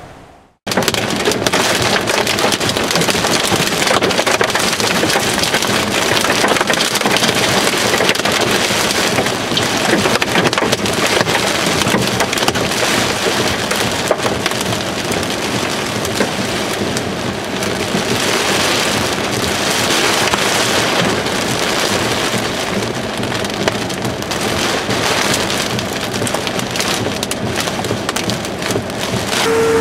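Hail and heavy rain pelting a vehicle, heard from inside the cabin: a dense, steady clatter of hard stones striking the roof and windshield over the hiss of the rain. It starts abruptly under a second in.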